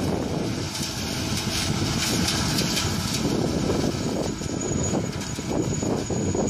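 New Holland 3550 AL combine harvester running while threshing sunflowers, its engine and machinery making a steady, dense noise. A thin high whine comes in about two-thirds of the way through.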